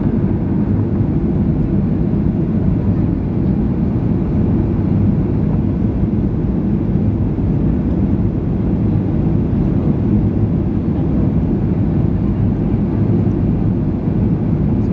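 Steady, low rumble inside the cabin of a Boeing 737-700 on approach: the noise of its CFM56 engines and the airflow, heard from a window seat over the wing.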